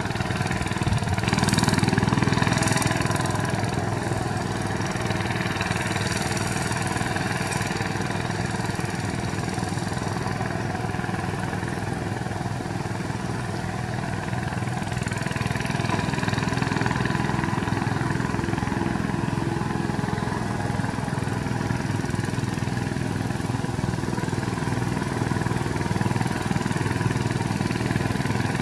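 VST Shakti 130 DI power tiller's single-cylinder diesel engine running steadily under load as its cage wheels work through paddy mud, with a slight swell in loudness about two seconds in.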